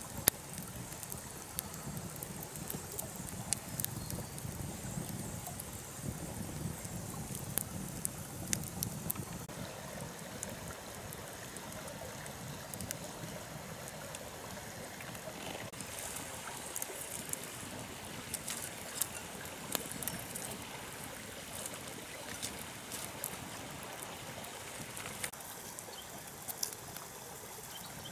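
Open campfire of wood and bamboo crackling, with many scattered sharp pops over a steady hiss.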